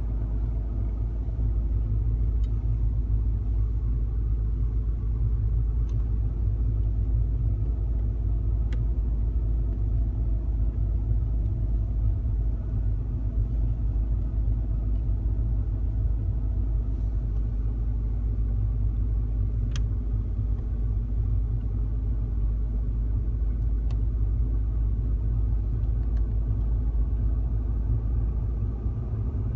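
Steady low rumble of a Mercedes-Benz car driving slowly on a snow-covered road, engine and tyre noise heard from inside the cabin, with a few faint clicks.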